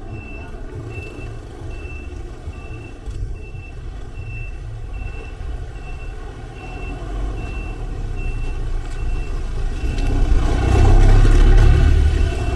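Street traffic: a short high electronic beep repeating about every half second throughout, over the low rumble of vehicle engines. An oncoming van's engine grows louder and is loudest near the end.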